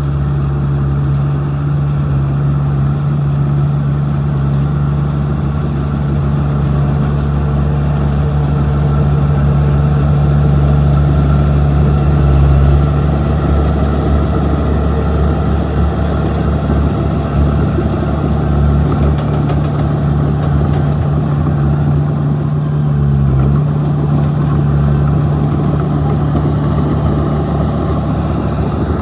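Bulldozer's diesel engine running steadily at a constant low pitch, with a brief dip in its tone about three-quarters of the way through.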